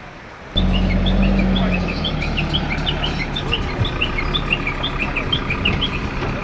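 Many birds chirping in quick, short, repeated calls over a steady low hum, starting suddenly about half a second in.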